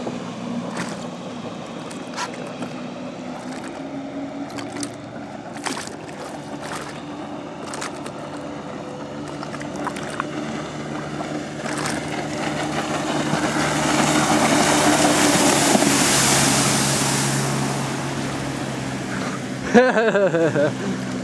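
Steady engine drone while a Waverunner personal watercraft runs past close by: the rush of its jet and spray swells to a peak about three-quarters of the way through, then fades.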